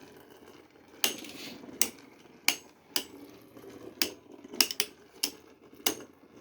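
Two 3D-printed Beyblade spinning tops battling in a stadium: a low scraping rattle as they spin, with about ten sharp plastic clacks as they hit.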